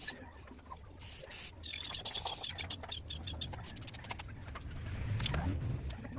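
Aerosol spray can of primer paint hissing in two short bursts, about a second in and again about two seconds in, with scattered clicks between the sprays.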